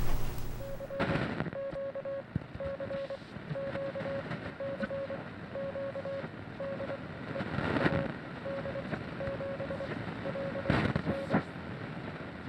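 Morse code: a steady mid-pitched tone keyed on and off in dots and dashes. Three short bursts of noise break in about a second in, around the middle and near the end.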